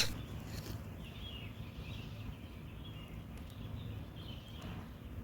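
Faint birdsong, with a few short calls in the first half, over a low steady background rumble.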